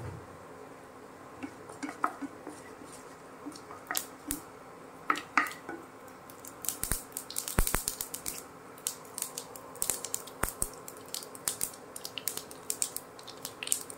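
Mustard seeds crackling and popping in hot mustard oil in a nonstick frying pan. The sharp pops are sparse at first and come much more often from about six seconds in.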